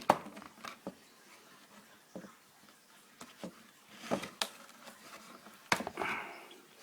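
Scattered sharp plastic clicks and knocks with short rustles as the insides of an old house telephone are handled and pulled apart by hand; the loudest knock comes near the end.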